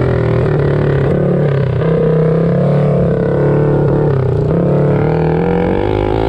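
Several mini bike engines running together at racing speed, their pitches rising and falling against each other as the riders throttle on and off.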